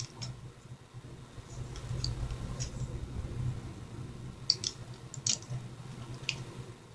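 Scattered small clicks of a makeup product's container being handled and worked open, a few seconds apart, over a low steady hum.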